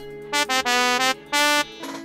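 Sampled trumpet played from a MIDI keyboard through a software sampler's instrument player: about three separate brassy notes at different pitches.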